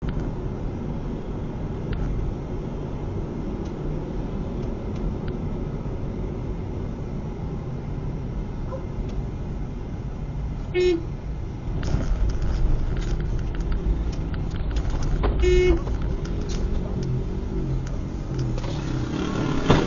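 Steady road and engine rumble heard from inside a moving car, with two short car-horn toots, one about 11 seconds in and another about 15 seconds in.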